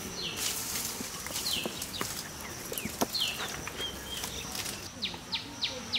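Rural ambience of birds calling over a faint insect hiss: a few short downward-sliding chirps in the first seconds, then a short sharp note repeated about three times a second from about five seconds in, with a few faint clicks along the way.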